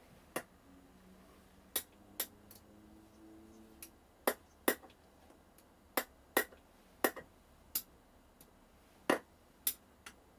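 Sharp, light metallic clicks and taps at irregular intervals, about fifteen of them, from a hex key and small guitar hardware being handled during pickup and wiring work.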